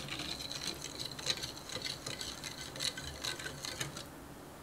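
Metal wire whisk stirring a thin, foamy liquid in a glass mixing bowl, its wires clinking rapidly against the glass with a light ringing tone. The whisking stops shortly before the end.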